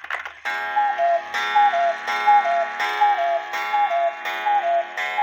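Cuckoo clock fitted with new bellows, calling its two-note "cu-ckoo", high then lower, about once a second, six times over, each call with a small click as it starts.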